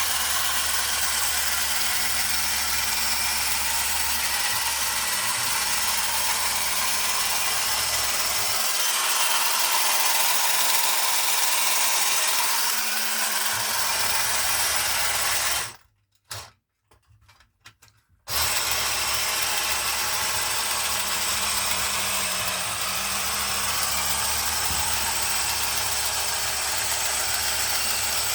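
1968 MSB battery-operated tin toy bulldozer running: its small electric motor and gear train whirring steadily. It stops for about two seconds just past the middle, then starts again.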